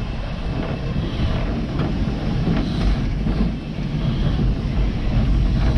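Heritage railway locomotive running along the track: a steady low rumble with a few sharp knocks.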